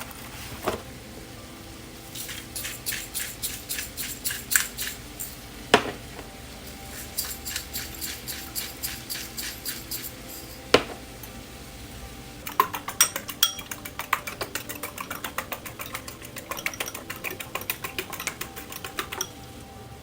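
Eggs cracked one at a time with a sharp knock on the rim of a bowl, three times, between runs of quick rhythmic clicking as the eggs are beaten in the bowl, about four to five strokes a second.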